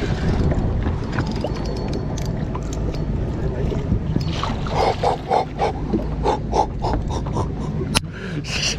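A smallmouth bass being fought and netted beside a fishing boat. A steady low rumble runs throughout. From about halfway there is a run of short repeated splashy sounds, about three a second, and a single sharp knock near the end.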